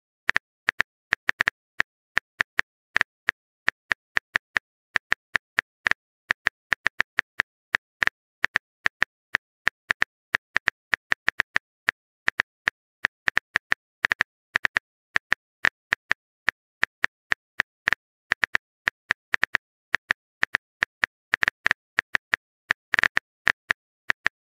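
Smartphone keyboard typing clicks: a long, uneven run of short taps, a few a second, with a slightly louder cluster near the end.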